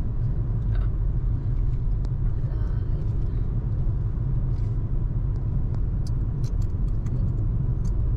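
Steady low road and engine rumble inside a moving car, with a few faint light ticks near the end.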